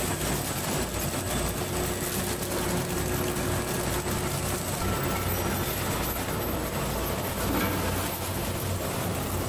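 Steady running noise of a green bean weighing and bagging line: conveyor motors and packing machinery running with a low hum.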